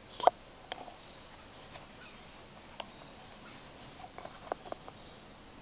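A few faint, scattered crackles and clicks, the sharpest about a quarter second in and a small cluster of lighter ones past the middle, over a quiet steady hiss.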